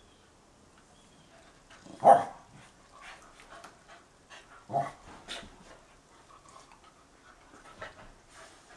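Puli dog giving two short barks, a loud one about two seconds in and a softer one about five seconds in, with faint small noises between.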